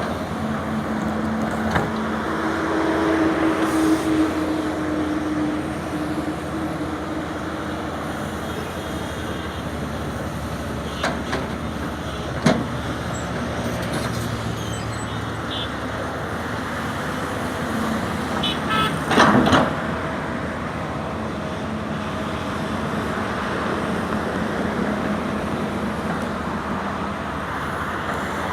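Sany SY210 crawler excavator's diesel engine running steadily as it works, with a hum that swells for a few seconds near the start. A sharp knock comes about twelve seconds in, and a short cluster of knocks about nineteen seconds in.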